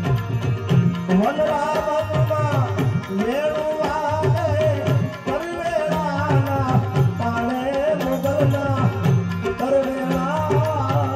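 Live Gujarati folk music: tabla drumming with deep bass strokes, joined about a second in by a male voice singing over harmonium.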